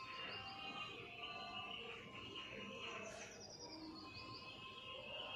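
Soft background music with high, chirping, bird-like notes.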